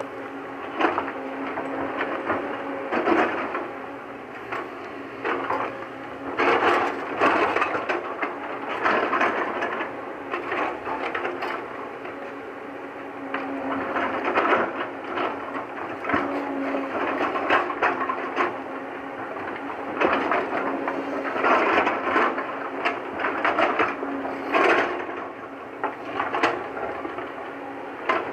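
JCB tracked excavator's engine running steadily while its bucket digs and scrapes through rocky soil, with frequent irregular knocks and clatter of stones.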